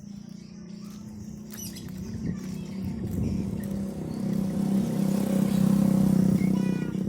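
A motor vehicle engine running steadily and getting louder as it comes closer, loudest about two-thirds of the way through, then easing slightly. A few short bird chirps come near the end.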